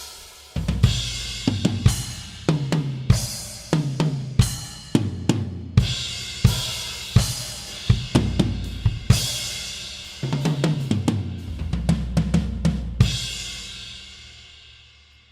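Drum kit played with Arborea Ghost cymbals: bass drum, snare and tom fills under crash and hi-hat hits. It ends on a cymbal left ringing and fading out.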